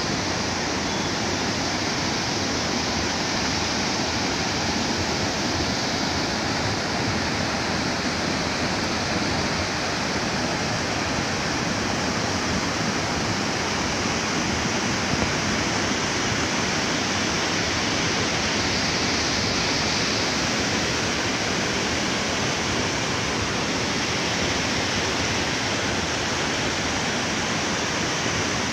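Steady rush of a swollen, silt-laden mountain river in flood, fast muddy water running over rocks and boulders.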